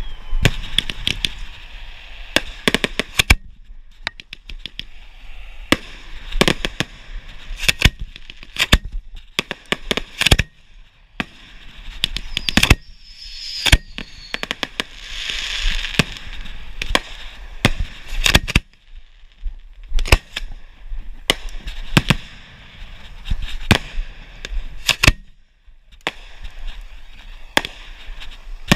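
Aerial fireworks going off at close range from the mortar racks at the firing position: a long irregular run of sharp bangs, sometimes two or three a second, with a stretch of dense crackling about halfway through.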